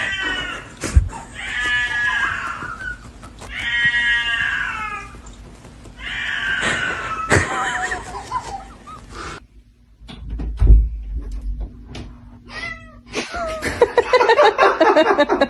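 A cat meowing in four drawn-out, falling calls, the last one the longest, followed by scattered knocks and a dense, rapid sound near the end.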